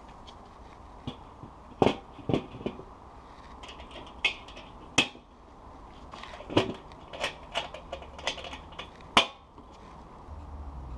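ProQ Excel 20 bullet smoker's steel dome lid being lifted off and set back on, with about ten sharp metal clanks and knocks coming irregularly as the lid and its handle are handled and seated.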